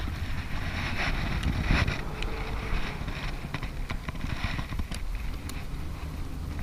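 Wind buffeting an action camera's microphone, a steady low rumble, with a few faint clicks and scuffs.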